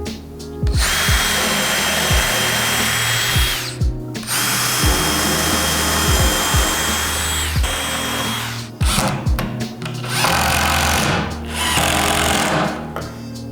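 An electric power tool runs in two bursts of about three seconds each, its motor whine dropping as it stops each time. Three shorter bursts follow in the second half. Background music plays underneath.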